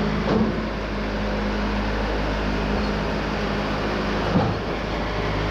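Wood-Mizer portable band sawmill's engine running steadily, with two brief knocks, one about half a second in and a louder one near the end.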